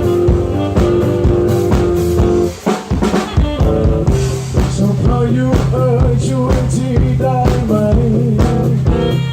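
Instrumental passage of a band song on drum kit, bass and guitar, with a short break about two and a half seconds in, after which a wavering lead melody plays over a steady bass line.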